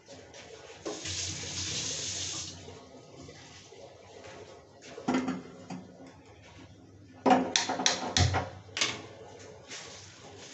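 A brief rush of running water, then a series of sharp knocks and clatters, loudest in a quick cluster about two thirds of the way through.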